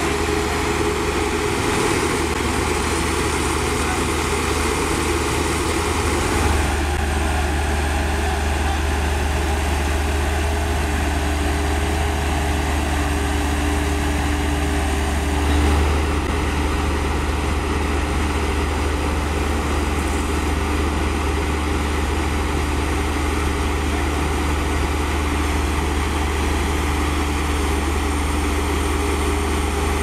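Heavy diesel engines idling steadily with a deep drone, from a Volvo soil compactor being loaded onto a self-loader truck; the tone shifts slightly about six seconds in and again about halfway.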